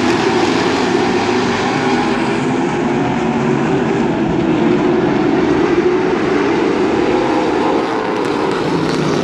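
A field of Limited Late Model stock cars running on an asphalt oval, their V8 engines loud and steady with no break.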